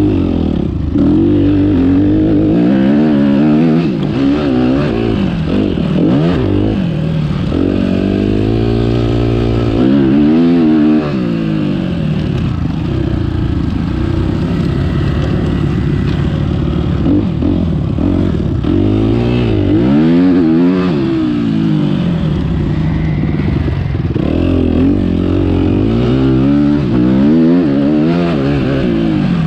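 Motocross bike engine revving up and dropping back again and again as it is ridden around a dirt track, its pitch climbing and falling every few seconds.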